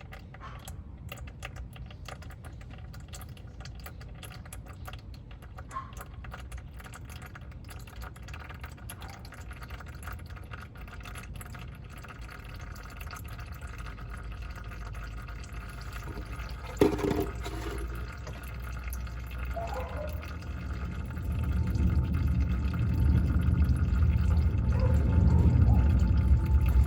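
Engine oil draining from a car's oil pan into a catch container, a steady pouring trickle. One sharp knock comes about two-thirds of the way in, and a low rumble grows louder over the last few seconds.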